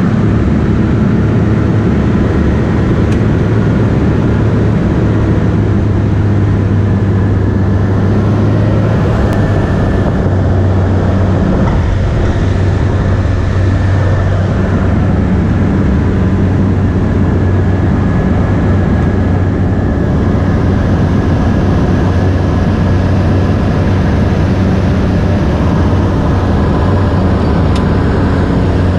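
Light single-engine floatplane's piston engine and propeller running with a steady, even drone, heard from inside the cabin on the approach to a water landing.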